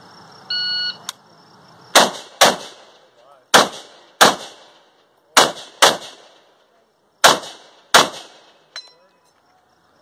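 A shot timer's start beep, then an M1 Garand rifle firing eight shots in quick pairs, emptying its clip. Near the end comes a small metallic ping as the empty en-bloc clip is ejected.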